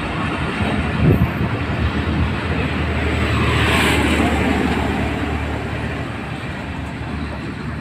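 Pakistan Railways passenger coaches rolling past along the platform: a steady rumble of wheels on the rails with a knock about a second in, swelling midway and easing off as the last coach goes by.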